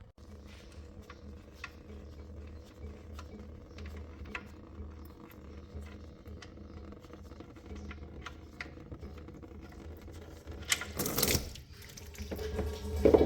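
Light scattered clicks and taps as the oil drain plug is worked loose under the truck, then a brief loud rush near the end as the engine oil starts to drain; the oil is diluted with fuel or DEF.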